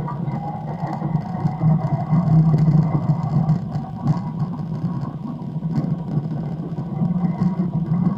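Recorded low, steady drone of a plane's engine with a faint higher whine over it, played back from a recording.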